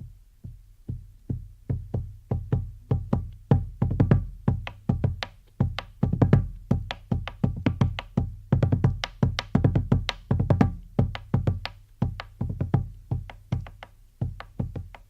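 Instrumental music: a steady rhythm of sharp struck or plucked notes, about three a second, over a low bass.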